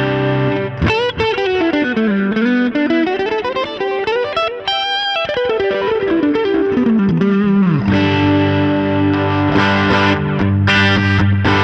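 Gretsch G5421 Jet Club electric guitar played through a Line 6 HX Stomp effects processor: a held chord, then a fast single-note lead run that sweeps down and back up in pitch, then chords again about eight seconds in.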